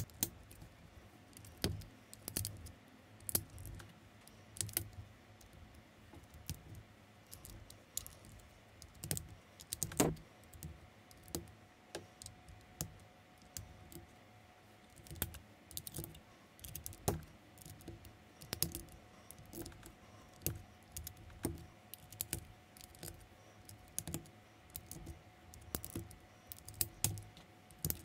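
Unofficial LEGO-compatible plastic bricks clicking and rattling as pieces are handled and pressed together, in irregular clicks several times a second, with one sharper click about ten seconds in.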